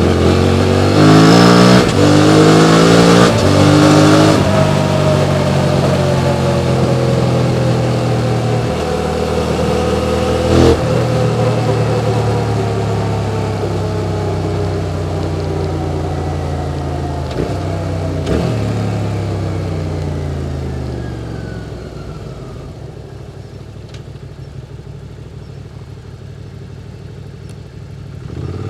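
QJ Motor SVT650X parallel-twin with an Arrow Racetech slip-on exhaust accelerating hard through several quick upshifts, then running on with the revs slowly easing off. The revs drop away about 20 seconds in and the engine falls to a quiet low idle, with a few sharp knocks along the way.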